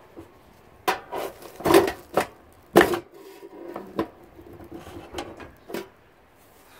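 A screwdriver prying and knocking at the sheet-metal motor bracket of a scrap dishwasher to break the pump motor loose: a series of sharp metal knocks and clicks, the loudest about two and three seconds in, with lighter taps after.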